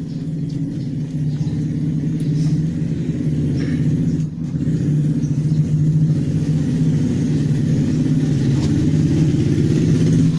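A motor vehicle engine running steadily with a low hum, growing louder over the first few seconds.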